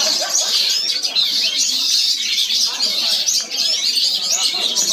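Many songbirds chirping and singing over one another in an unbroken high-pitched chatter.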